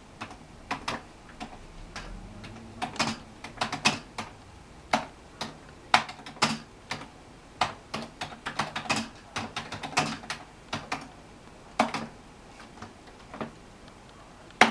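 Commodore 64 keyboard keys being typed on slowly and unevenly, single keystrokes clacking with short irregular gaps between them.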